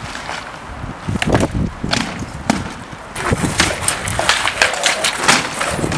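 Armoured SCA heavy fighters trading blows, with rattan swords knocking on wooden shields and armour. A few sharp knocks at first, then a quick run of hits from about three seconds in.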